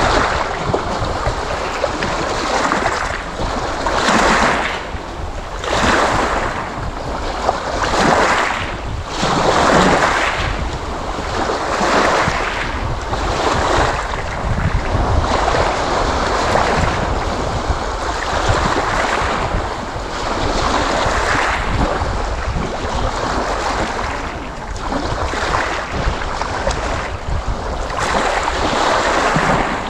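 Sea waves washing in: continuous surf noise that swells and eases every couple of seconds over a steady low rumble.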